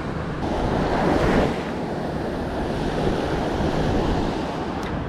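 Surf breaking and washing up a sandy beach, with wind buffeting the microphone. The wash swells up about a second in.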